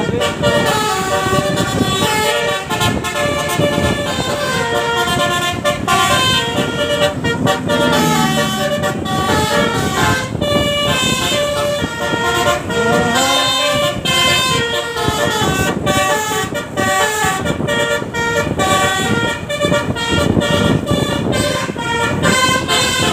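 Bus telolet basuri musical horn playing a tune continuously, its steady notes changing pitch in quick steps.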